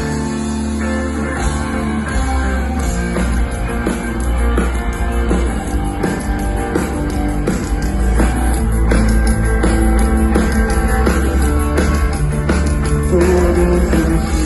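Live rock band playing an instrumental intro: bass and drums come in together with the guitars right at the start, then the full band plays on with a steady beat.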